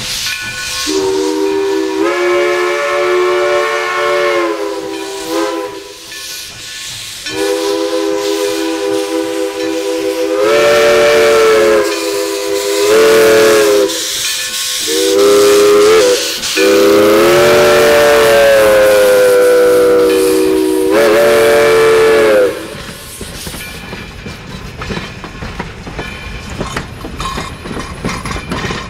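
Black River & Western steam locomotive No. 60, a 2-6-0, blowing its chime whistle in a string of long and short blasts over the hiss of steam venting from its cylinder cocks. The whistle stops about 22 seconds in, leaving the clatter of passenger coaches rolling past.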